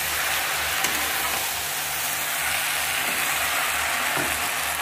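Potatoes, brinjal and fish head sizzling steadily in a kadai while a spatula stirs them through the pan, with a light clink about a second in.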